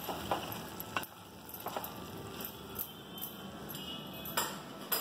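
A wooden spatula stirring a thick vegetable stir fry in a metal pot, with irregular light knocks and scrapes against the pot's sides.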